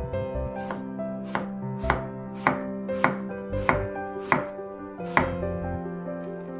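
Kitchen knife slicing a peeled apple on a bamboo cutting board: about eight evenly spaced, sharp knocks of the blade hitting the board, a little under two a second.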